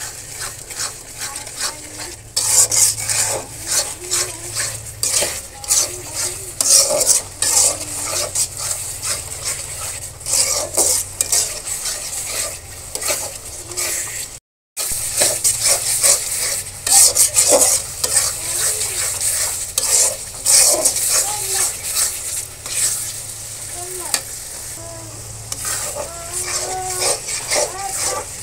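Onion, ginger and garlic spice masala sizzling in hot oil in a metal karahi while a metal spoon stirs and scrapes it against the pan, being fried down (kashano). The sound cuts out for a moment about halfway.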